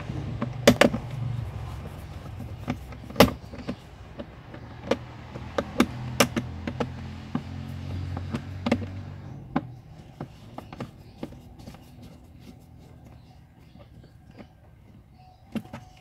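Plastic clicks and knocks of an under-dash trim panel being handled, fitted and pressed into its clips above the pedals. A steady low hum runs under them and stops about nine and a half seconds in.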